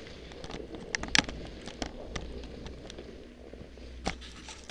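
Skis sliding over packed snow, with a few sharp clicks and knocks of ski gear, the loudest about a second in and another near the end.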